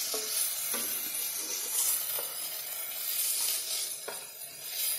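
Sautéed onion and capsicum sizzling softly in a hot kadai just taken off high flame, with a wooden spatula scraping and tapping the pan a few times as the vegetables are scooped out onto a plate.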